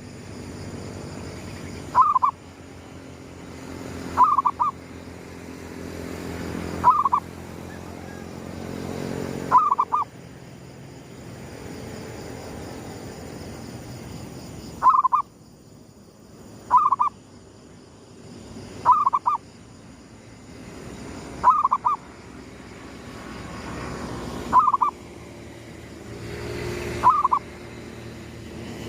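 Zebra dove (perkutut) cooing: a short, stuttering coo phrase repeated about every two to three seconds, ten times, with a pause of about five seconds midway.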